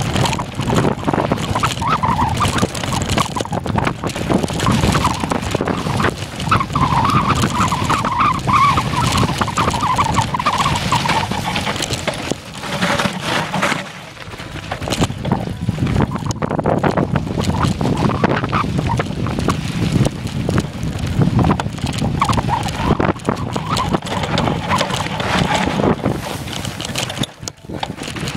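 A mountain bike riding fast over a rough trail: wind buffets the microphone and the bike rattles and clatters over the ground. A wavering whine runs for a few seconds about a third of the way in.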